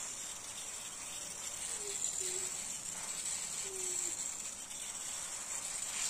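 Fine water spray from a garden hose nozzle showering onto leafy plants and soil: a steady hiss.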